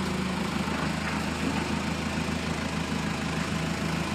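An engine idling steadily with an even low throb.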